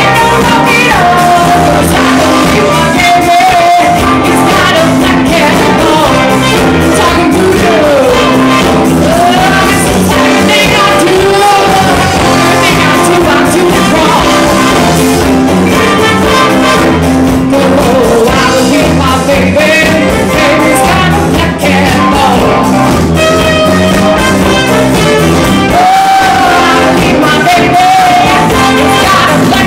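Live band playing a song, loud and continuous: trumpet, electric guitar, keyboard and drum kit, with a woman singing over it.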